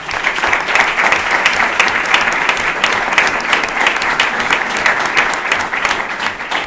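Audience applauding: many people clapping steadily and densely throughout.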